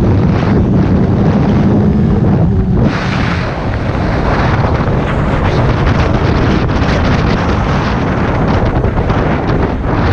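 Wind rushing over the microphone of a moving motorcycle, mixed with the bike's engine running; the engine's steady hum is clearest in the first three seconds, after which the wind hiss takes over.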